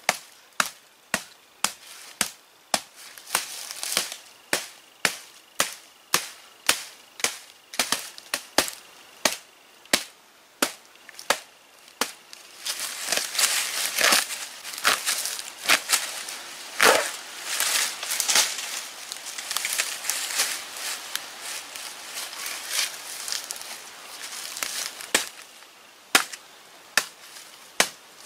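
Axe chopping into a felled sapling trunk lying on the ground, with sharp wooden blows about every two-thirds of a second. About halfway through the blows turn quicker and less distinct, mixed with splintering and rustle, and separate regular strokes return near the end.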